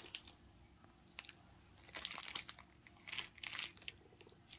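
A small clear plastic bag of .357 air-gun pellet slugs being handled: the plastic crinkles in a few short bursts, the main ones about two and three seconds in.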